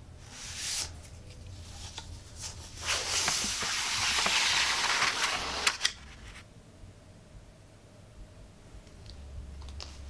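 Paper scroll being unrolled: a short rustle just after the start, then about three seconds of louder crackling paper rustle beginning around three seconds in.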